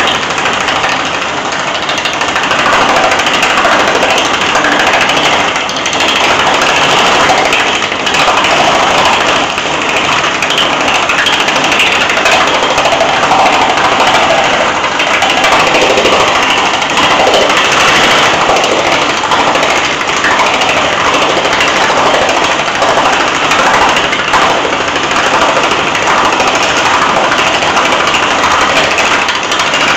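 Self-made power hammer running with rapid, continuous blows of its dies on a sheet of 20-gauge steel: a loud, fast metallic rattle that goes on steadily while the panel is shaped.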